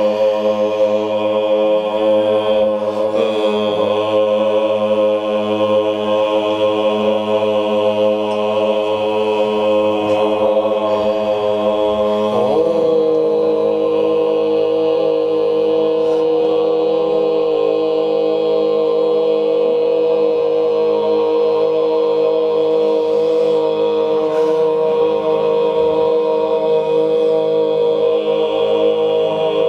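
A group of voices chanting together, holding a long sustained drone on open vowels like a mantra. About twelve seconds in, the held pitch slides down slightly and settles on a new note.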